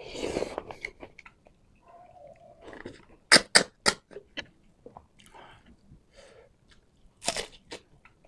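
Close-up eating sounds: wet chewing and slurping of coconut-milk-stewed bamboo shoots and snails, with loud sharp sucks as snail meat is sucked out of the shell, three in quick succession around three seconds in and another burst near the end.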